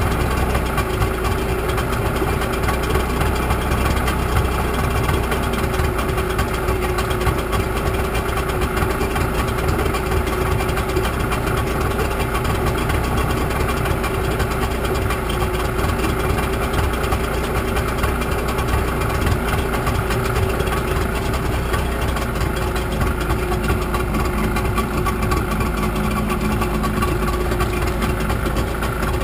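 Selva 45 hp outboard engine idling steadily with its leg in a barrel of water. It has been restarted after standing unused for over a year, with the idle turned up on both carburettors.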